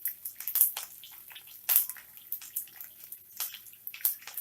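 Hot oil in a pan crackling and spitting around freshly added curry leaves and green chillies: irregular sharp pops over a faint sizzle, with a few louder spits.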